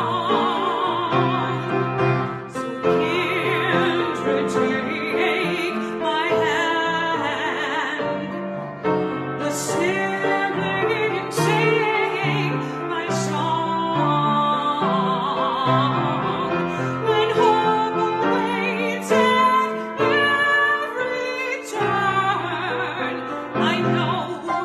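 A solo voice singing in a classical style with vibrato, accompanied by piano.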